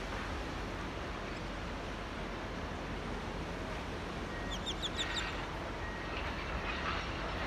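Steady wash of small waves lapping in a tidal channel, with a bird giving a quick run of about five high chirps just after the middle.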